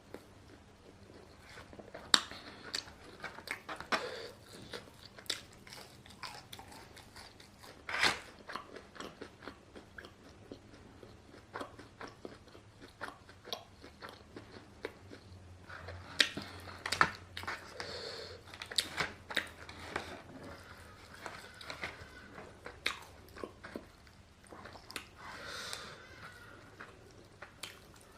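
A person chewing and biting food close to the microphone, with many short crunches and wet mouth clicks at an irregular pace.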